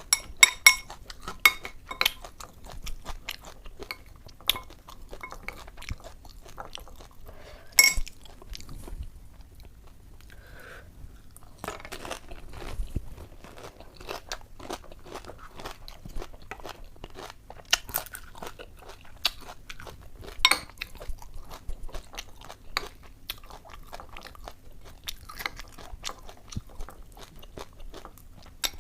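Crisp puchka (panipuri) shells filled with ghugni crunching as they are bitten and chewed close to the microphone, a rapid run of sharp crackles at the start, then steady chewing with single loud crunches about eight and twenty seconds in.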